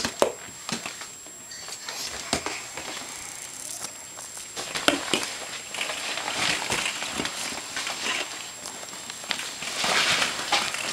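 Inflatable vinyl play car crackling and rubbing as a baby climbs and crawls through it, with scattered light knocks, busiest in the second half.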